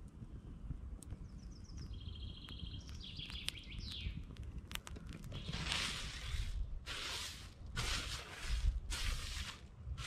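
A small songbird singing quick high trills in the first few seconds. Then, from about halfway, several loud rustling sweeps as a tablecloth is shaken out and smoothed over a small wooden stool-table.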